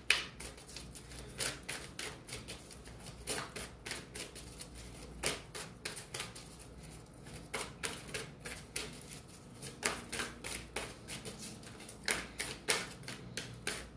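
A deck of reading cards being shuffled by hand: irregular quick clicks and snaps of the cards, a few a second.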